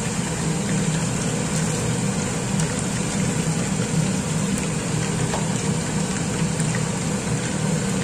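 Chicken pieces deep-frying in hot oil in a wok: a steady sizzle over a steady low hum, with a few faint clicks.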